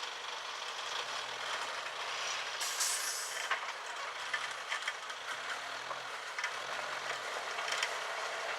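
Suzuki Jimny Sierra crawling over rocks, its engine running low under a steady noisy rush, with a brief sharp hiss about three seconds in.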